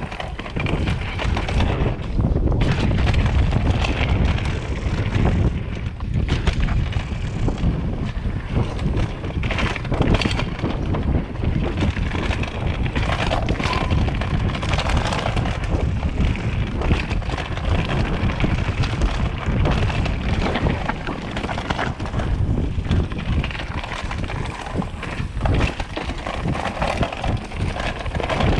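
A mountain bike riding fast down rough dirt singletrack, heard from a chest-mounted camera. Wind buffets the microphone, and the tyres rumble over dirt and rocks while the bike clatters with frequent short knocks.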